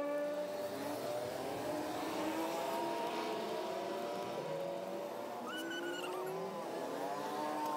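Motor vehicle engines revving and passing, several rising and falling engine tones overlapping, with a short higher tone about five and a half seconds in.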